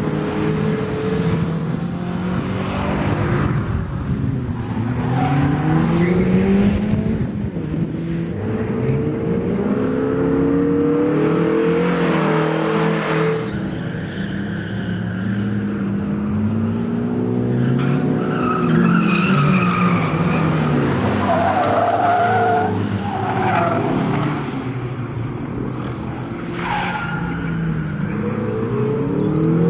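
Peugeot 306 hatchback's engine being driven hard on a race track, revving up and dropping back again and again through gear changes and corners, with tyres squealing at times.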